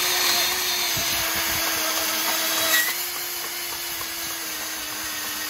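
Ridgid 18V cordless band saw running and cutting through a metal tube: a steady motor tone under the continuous noise of the blade in the metal, loudest in the first few seconds.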